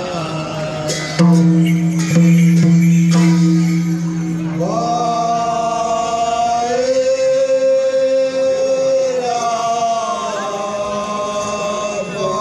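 Traditional devotional singing in a chant-like style, with long held notes that slide between pitches. A steady low tone sounds under the voice for the first few seconds, and several sharp percussion strikes fall in the first three seconds.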